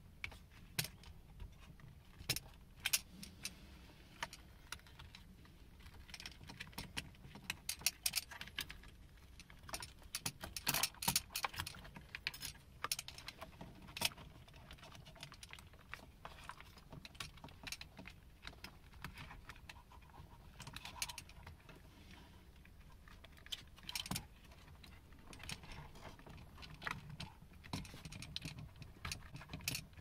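Irregular light clicks and rattles as a steering wheel hub adapter is handled and turned on the steering column and the wiring is worked through it. The clicks come in small clusters, busiest a third of the way in.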